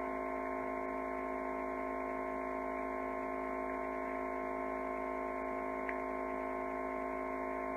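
Steady electrical hum: a constant buzz of several fixed tones that never changes, with one faint click about six seconds in.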